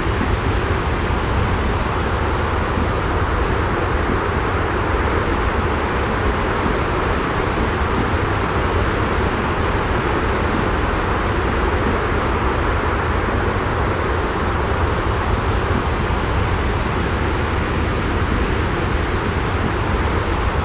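Steady, unchanging wash of noise with a strong low rumble underneath: a continuous white-noise sleep track.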